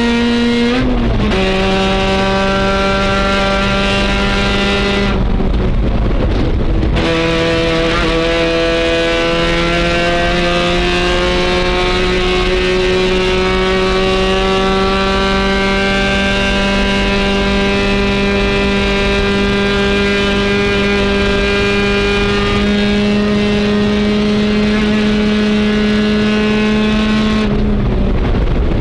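A race car's engine heard from inside the cockpit, running hard on track. The engine note steps down about a second in and drops away briefly around five to seven seconds in. It then climbs slowly and steadily for about twenty seconds under sustained throttle, before falling away again near the end.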